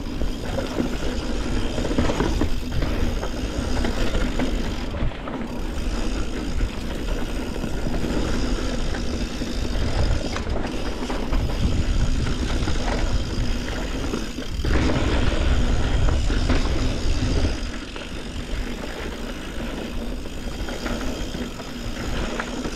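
A Yeti SB140 full-suspension mountain bike ridden along a trail: a steady loud rumble of tyres over dirt and rock, with rattling from the bike, dipping briefly a few times.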